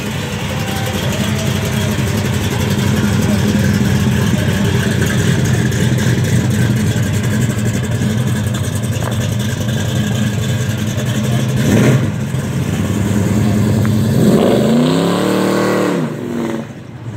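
Exhaust of a late-1960s Chevrolet Chevelle muscle car running steadily as it pulls away, with a short sharp crack about two-thirds of the way through. Near the end comes one rev that rises and falls in pitch, and then the sound drops away.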